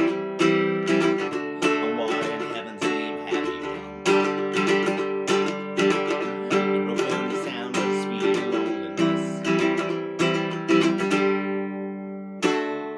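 Ukulele strummed in a steady rhythmic pattern through the G, C and D chords of the song, with a last strum near the end left to ring out.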